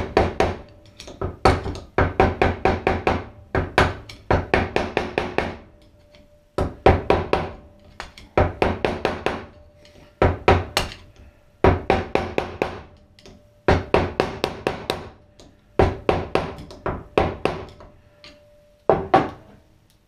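Hammer blows on a steel drift punch, driving at a press-fit main bearing in an aluminium scooter crankcase half. The blows come in rapid flurries of about five a second, with short pauses between them. The bearing stays tight and does not drift out cold.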